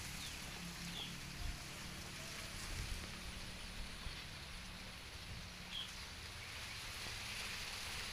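Baby monkey lapping and slurping milk from a plastic bowl, soft wet sounds over a steady outdoor hiss. Two short high chirps, about a second in and near six seconds in.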